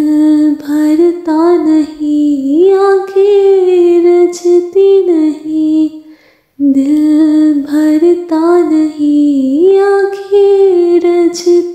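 A woman's voice singing a melody without words, holding long notes and sliding between them. The same phrase is sung twice, with a brief break about six seconds in.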